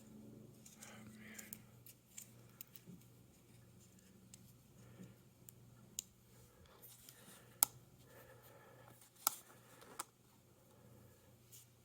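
Small clicks and scrapes of hand tools working on a Tile tracker's plastic case while it is being pried open, with a few sharper clicks in the second half.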